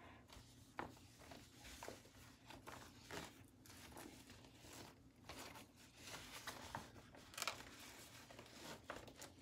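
Faint handling sounds of a blood pressure cuff being fitted around an upper arm: scattered soft rustles and small clicks.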